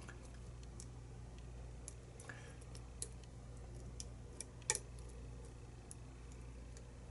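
Small irregular metallic clicks and ticks of a lock pick working the pins inside a lock under tension, with one louder click a little before five seconds in, over a steady low hum.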